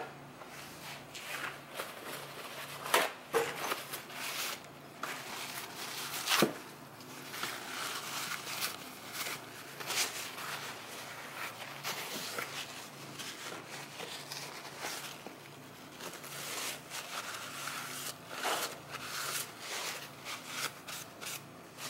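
Hands working on the parts of a Bendix hydroboost on a workbench: irregular light clicks, taps and rustling, with a few sharper clicks spread through.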